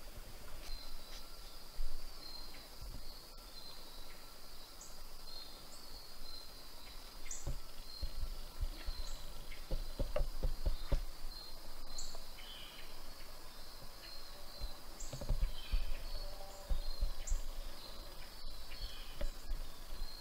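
Woodland ambience: a steady high insect trill, with short high chirps every second or two. Low rumbling thuds come and go, mostly in the middle and again a few seconds later.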